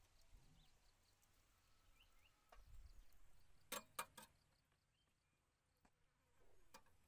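Near silence, broken by three sharp clicks of a metal utensil knocking against a metal steamer pot, a little under four seconds in.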